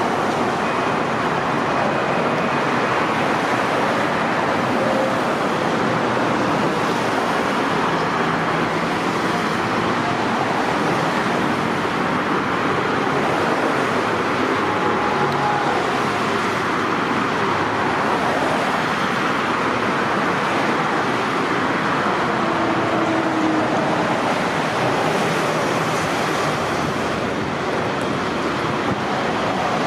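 Steady freeway traffic noise: a continuous, even rush of cars and trucks passing at speed.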